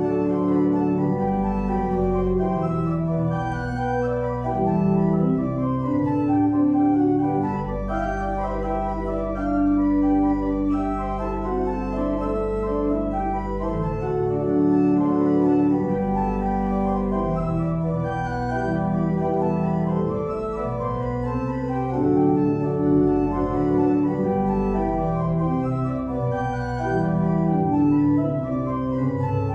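Organ playing the postlude, the closing piece of the service: full held chords moving slowly, with a low bass note sustained for about six seconds a quarter of the way in.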